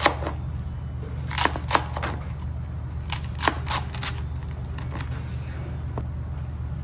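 Kitchen clatter while cooking: a scattering of sharp knocks and clicks, like utensils and dishes being handled, about eight in all, over a steady low hum.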